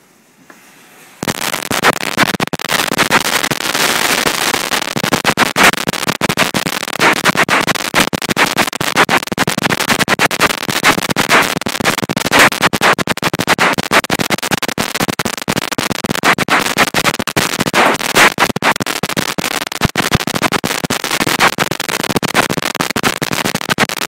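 A string of Chinese firecrackers going off: a dense, rapid, unbroken crackle of sharp bangs that starts suddenly about a second in. It is so loud that the phone's microphone overloads.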